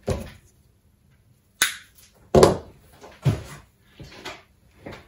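Tools and wire being handled on a wooden workbench, with a string of knocks and clatters, among them a sharp click about a second and a half in, as side cutters are set down on the bench top.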